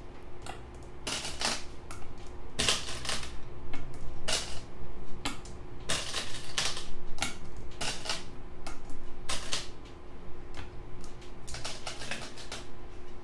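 Go stones clacking down on a board one after another, about twenty sharp clicks at an uneven pace, as a sequence of moves is laid out. A faint steady hum sits underneath.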